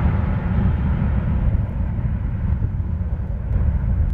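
Airbus A320's IAE turbofan engines at takeoff thrust as the jet rolls past at speed and away down the runway. A deep rumble holds steady while the higher part of the roar fades.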